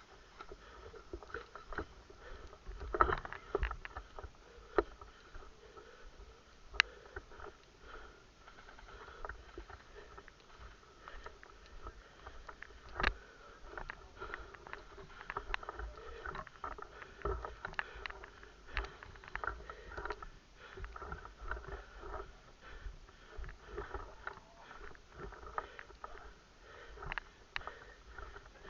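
Irregular rustling of footsteps and movement through woodland undergrowth, with many scattered sharp snaps and clicks; the loudest snaps come about 3, 7 and 13 seconds in.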